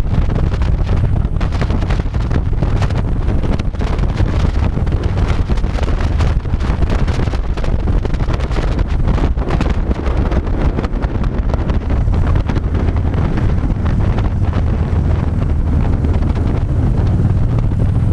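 Wind buffeting the microphone over the steady low running of a Harley-Davidson V-twin motorcycle engine, heard on board while cruising at road speed.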